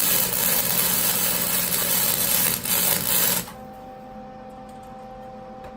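Welding arc crackling steadily for about three and a half seconds as a tack weld is laid on a corner of a steel tube frame, then cutting off sharply. A steady electrical hum carries on afterwards.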